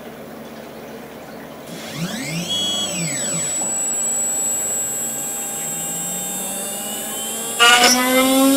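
3040 CNC router with a diamond cutter running into soft stone under water. About two seconds in there is a whine that rises and then falls in pitch, followed by a steady high whine. Near the end a louder whine begins, slowly climbing in pitch.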